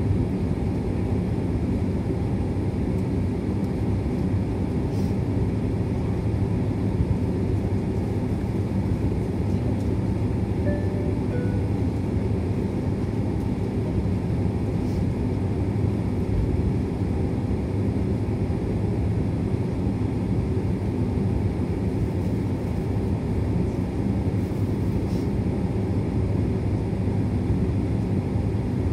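Steady cabin noise of a Boeing 767-300 airliner taxiing with its jet engines at idle: an even low hum and rush. About eleven seconds in, a two-note falling cabin chime sounds once.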